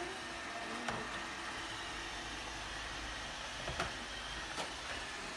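Steady low mechanical hum of room noise, with a few faint knocks as a toddler climbs onto a plastic high chair.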